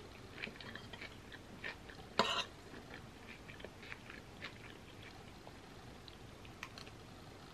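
Quiet close-up chewing of a mouthful of creamy pasta salad, with scattered small wet mouth clicks, then another forkful-sized spoonful taken as a bite near the end. A short, louder noise stands out about two seconds in.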